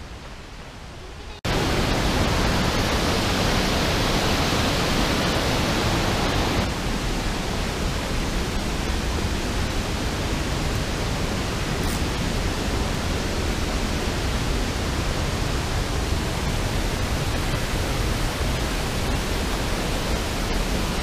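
Steady loud rush of water, cutting in suddenly about a second and a half in and easing slightly in level about six and a half seconds in.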